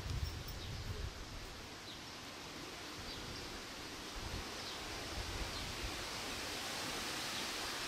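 Outdoor breeze rustling through tree leaves as a steady hiss, with wind buffeting the microphone as a low rumble at times.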